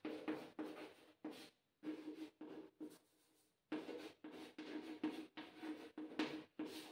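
Chalk writing on a chalkboard: a quick run of short scratching strokes, with a brief pause about three seconds in.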